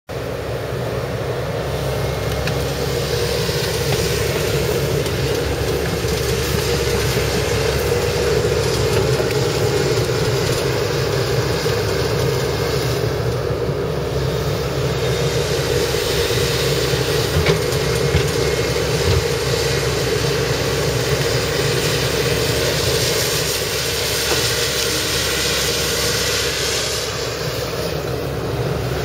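Tracked excavator's diesel engine running steadily under load while working a bogged machine out of deep mud, with a few metal knocks about halfway through.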